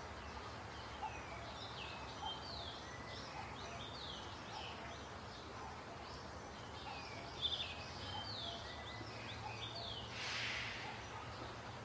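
Faint chirping of small birds, many short quick calls over a low steady hum, with a brief soft hiss near the end.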